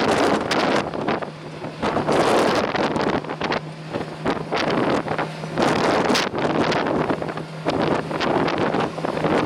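Strong gusting wind buffeting the microphone, surging and easing every second or two with brief lulls, over a faint steady low hum.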